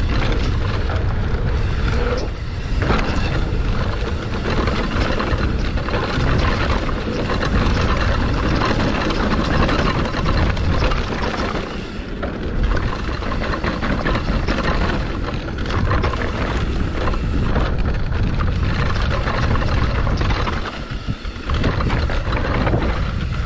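Mountain bike rolling fast down a rough dirt trail, its tyres and suspension rattling over rocks. A loose frame-mounted GoPro knocks and rattles against the frame throughout, because its rigged mount has failed.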